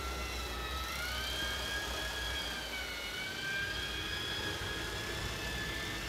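Sportfishing boat's engines running while trolling: a steady whine that drifts slowly up and down in pitch over a low rumble and the hiss of the wake.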